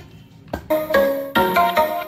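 Music playing through a Zebronics tower speaker under test, coming in about half a second in with held melodic notes.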